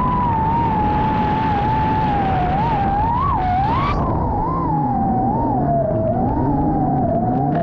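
Racing drone's motors whining at a high pitch that wavers up and down with the throttle. A lower engine note comes in about halfway through.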